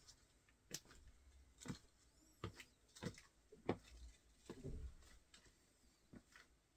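Faint footsteps of Asics Gel-Kayano 14 sneakers on a wooden floor: soft taps and scuffs about once a second as the feet step in place, with a slightly longer scuff about halfway through.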